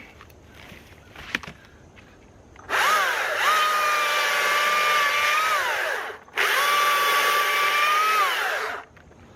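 STIHL battery-powered electric chainsaw triggered twice, a couple of seconds apart. Each time the motor spins up to a steady high whine, holds for about three seconds, then winds down on release. It still reaches full speed on a nearly spent battery.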